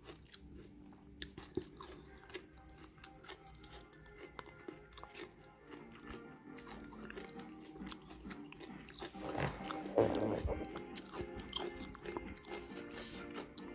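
Crunchy chewing and biting of food, with many small clicks, over soft background music; the crunching is loudest about nine to ten seconds in.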